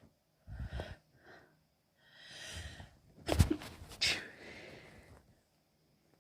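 A woman sneezing from an oncoming cold: a few hitching catches of breath, then an inhale that builds into a sharp sneeze just past three seconds in. A second burst follows at once, then a fading exhale.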